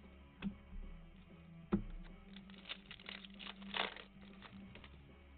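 Baseball cards and their foil pack wrapper being handled: two sharp taps, then about two seconds of crinkling and tearing.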